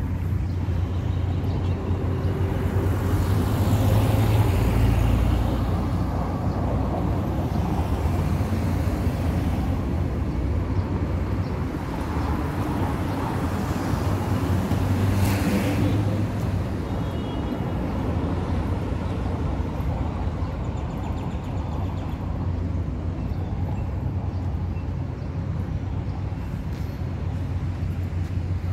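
Street traffic: cars passing along the road, the sound swelling and fading as each goes by, over a steady low rumble. One short sharp sound about halfway through.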